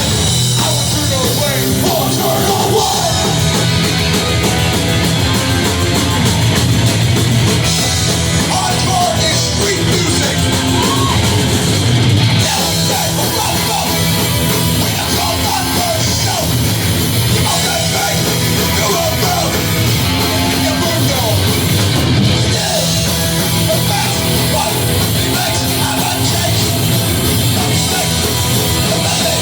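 Hardcore band playing live at full volume, with shouted vocals over drums and guitars.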